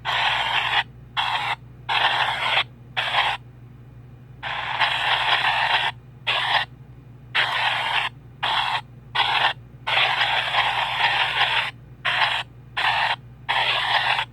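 PXB 07 spirit box sweeping through radio frequencies: choppy bursts of static and radio fragments, cut by frequent short silent gaps, over a steady low hum.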